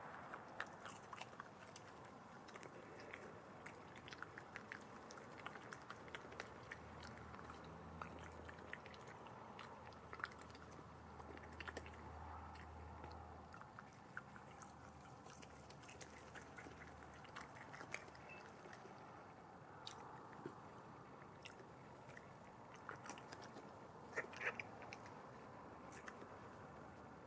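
European badger chewing and biting chips: faint, irregular clicks of chomping, with a louder flurry near the end.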